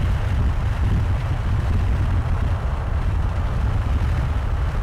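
Steady low rumble of a vehicle in motion, engine, road and wind noise, heard from on board.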